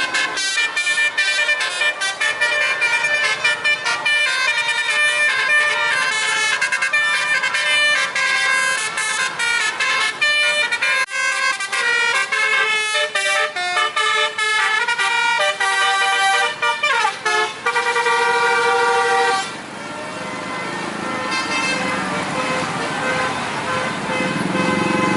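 Bus 'telolet' musical air horns playing quick melodic tunes of short stepped notes, one phrase after another. About 19 seconds in the tune stops and traffic noise takes over, with a few more horn notes near the end.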